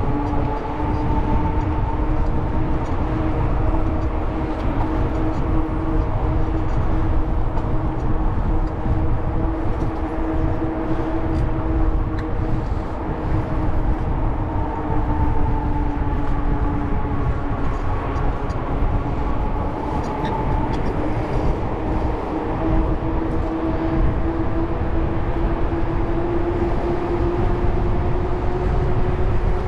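Wind rushing over the microphone while cycling, with a steady droning hum whose pitch drifts slowly and rises near the end.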